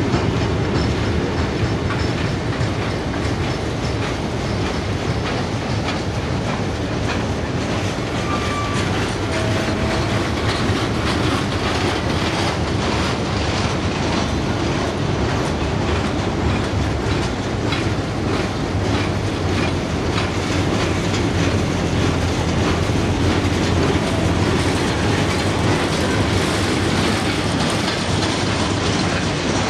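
Freight wagons loaded with steel coils rolling past, a steady rumble with the clickety-clack of their wheels over the rail joints.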